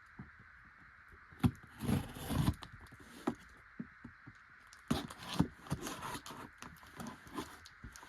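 A shipping package being opened and handled: scattered knocks, clicks and scrapes with a short stretch of rustling about two seconds in, over a steady faint hiss.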